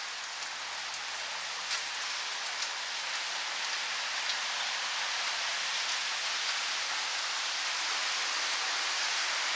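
Steady rain falling, an even hiss with a few faint drop ticks, sounding thin with almost no low end as picked up by the camcorder's built-in microphone.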